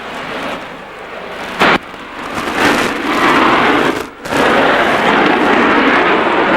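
Military jet engine noise from a display pass: a loud, even rushing noise. It swells and stays loud from about four seconds in, just after a brief dropout, with a single sharp knock about a second and a half in.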